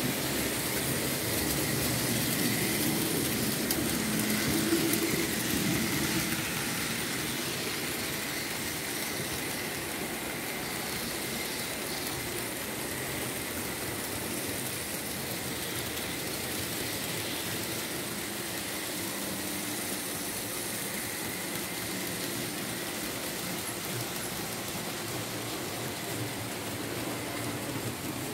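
Märklin H0 analog model train running on the layout: a steady whir of the small electric motor and the rolling of wheels on the metal track, a little louder for the first few seconds as the train passes close.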